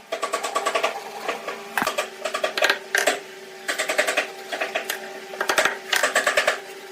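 A small woodworking power tool running in short bursts, each about a second long, with a fast rattling clatter and brief pauses between them.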